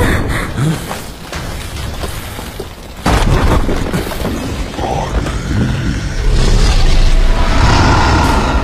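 Film action sound effects: a sudden deep boom about three seconds in, followed by a sustained low rumble that stays loud to near the end.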